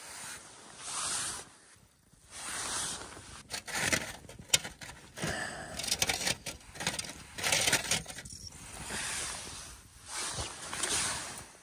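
Liquid-fuel backpacking stove being lit and primed: a few sharp clicks about four seconds in, and the burning priming fuel flares up in rushing waves that swell and fade.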